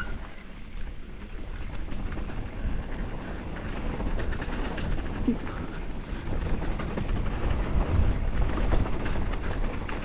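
YT Capra mountain bike rolling fast down a dusty dirt trail: wind rushing over the action camera's microphone with a low rumble, tyres crunching and the bike rattling with many small ticks and knocks. The rush grows louder as speed builds, loudest about eight seconds in.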